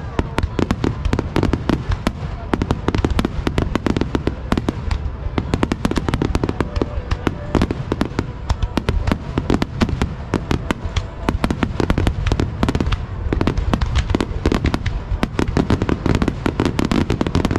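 Aerial firework shells bursting in a rapid, unbroken barrage, many overlapping bangs every second.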